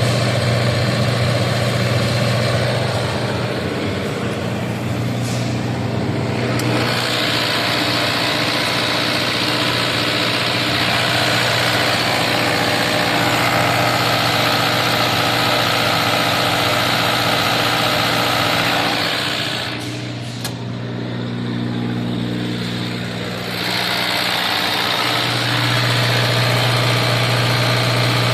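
Diesel generator set running steadily under test: a constant engine drone. A brighter hissing layer comes in about a quarter of the way through, drops away for a few seconds about two-thirds in, and returns near the end.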